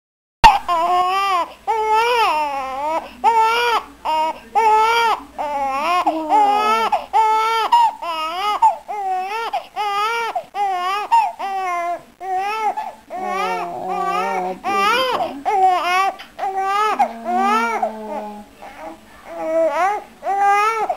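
A young baby crying in an unbroken run of short, rising-and-falling wails, one after another, starting about half a second in.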